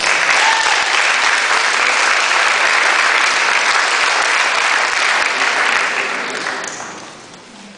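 Audience applauding, a steady wash of many hands clapping that dies away near the end.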